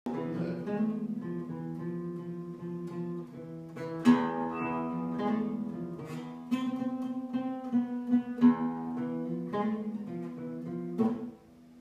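Acoustic guitar played alone: notes picked over ringing low strings, with louder struck chords about four seconds in and a few more later, dying away just before the end.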